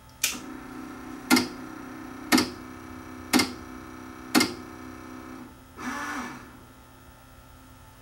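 Sony TC-WE435 double auto-reverse cassette deck's tape mechanism at power-up: a motor hums while the mechanism clunks five times, about once a second, then gives a short whirr that winds down about six seconds in and stops. This clunking is the fault that is traced to a drive belt that has turned to mush and come off.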